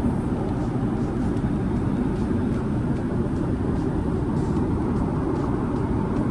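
Steady low rumble of a Boeing 777-300ER's cabin at cruise: engine and airflow noise heard from inside the aircraft.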